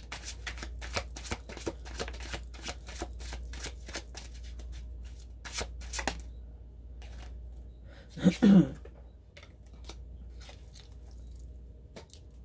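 Tarot cards being shuffled by hand: a quick run of crisp card clicks for about six seconds, then a few scattered clicks. A brief loud burst stands out about eight seconds in, over a steady low hum.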